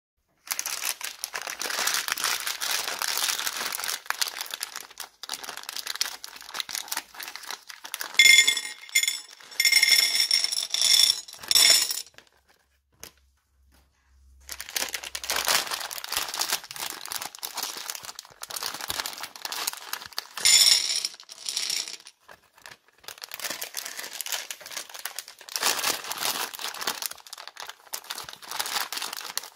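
Plastic candy bag crinkling as it is handled and opened, with hard-shelled M&M candies pouring and clicking onto a plate. There is a brief lull about halfway through.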